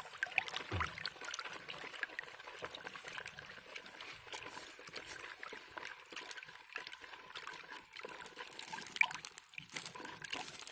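Water swishing and splashing in a plastic bucket as a bare hand stirs it round and round, dissolving fertilizer into the water.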